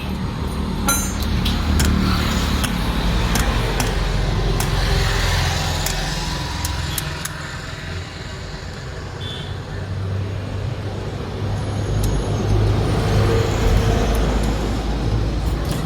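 Motor vehicle noise: a low engine rumble that swells and eases, with a few sharp clicks in the first couple of seconds.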